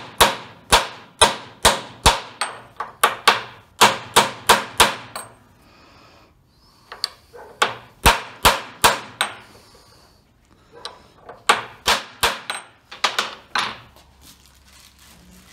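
A ball-peen hammer strikes an old impact socket used as a driver, pressing a U-joint bearing cap down into the driveshaft yoke. Sharp metal taps come about two to three a second, in three runs with short pauses between.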